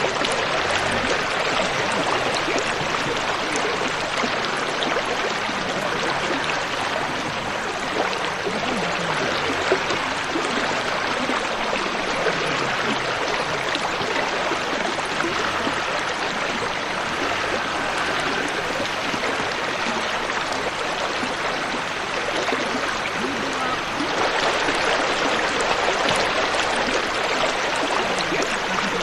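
Shallow river water rushing and splashing steadily around a vehicle's wheels as it wades slowly across a rocky riverbed, with the engine faintly underneath.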